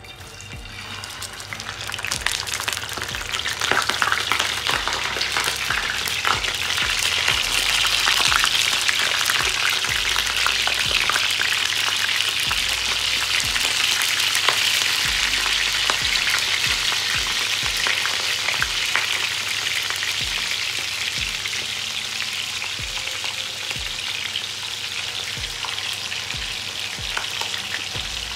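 Queenfish pieces frying in hot oil in a frying pan: a loud, steady sizzle full of crackling spits. It swells over the first few seconds as the fish goes into the oil, then eases slightly near the end.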